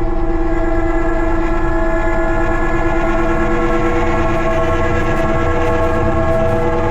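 A loud, sustained chord of several steady tones held without a break over a low rumble, like a horn blowing continuously.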